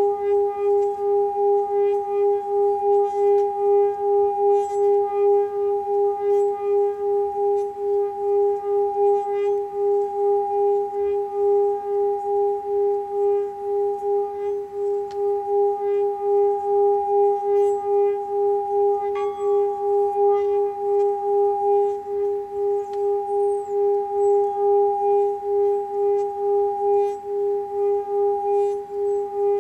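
Small metal singing bowl held in the palm, its rim rubbed round with a red mallet, sustaining a steady singing tone with a higher overtone. The tone swells and dips about twice a second as the mallet circles, and a brief extra higher ring joins in about two-thirds of the way through.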